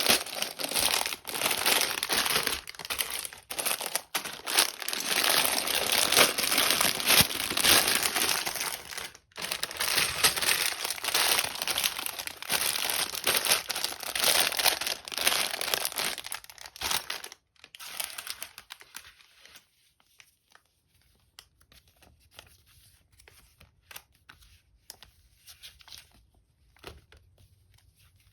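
LEGO set packaging crinkling and tearing as it is handled and opened. The crinkling is dense and continuous, then stops about seventeen seconds in, leaving only faint small clicks and taps.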